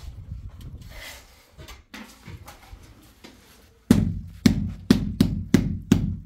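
Faint scattered taps, then about two-thirds of the way in a fast run of loud, sharp strikes begins, each ringing briefly, about two to three a second.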